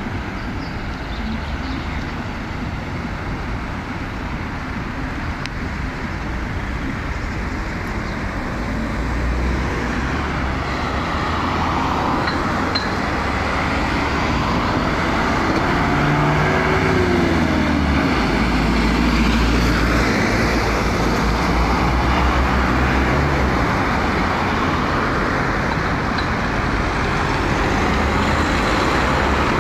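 Road traffic on a multi-lane city street: cars and a van driving by in a continuous rumble that grows louder about a third of the way in. About halfway through, one vehicle's engine is heard revving up and dropping back.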